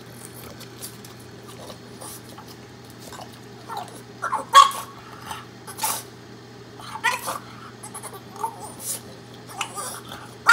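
Boston terrier giving short eager whines, several times, the loudest about four and a half seconds in and another at the very end, over the steady hum of a running microwave oven.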